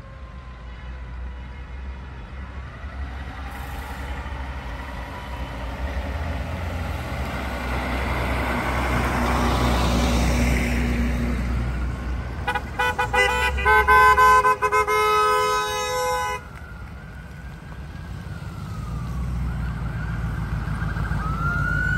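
A fire truck drives past, its engine and tyre noise building to a peak about halfway through. A horn then sounds several short toots followed by one long blast that cuts off suddenly. Near the end a siren starts wailing, rising and falling.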